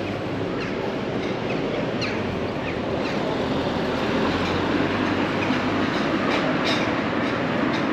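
A small hatchback car driving past close by on a street, its tyre and engine noise swelling from about four seconds in as it goes by.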